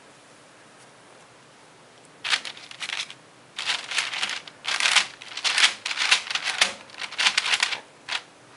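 Dry, irregular rustling and rubbing of floured hands against each other and against parchment paper while cookie dough is shaped into rounds and pressed flat. It starts about two seconds in and comes in a quick run of short scrapes until near the end.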